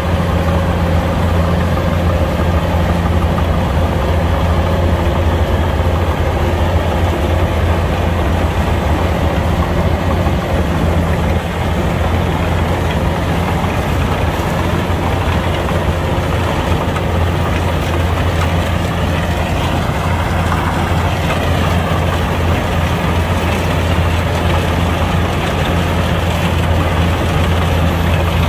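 Kubota combine harvester's diesel engine running steadily with a strong, even low hum. A fainter whine rises and falls once about twenty seconds in.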